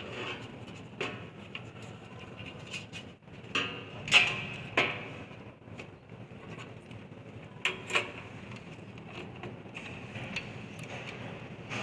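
Scattered clicks and knocks of hard computer-case parts being handled, with the loudest knock about four seconds in and two more close together near eight seconds.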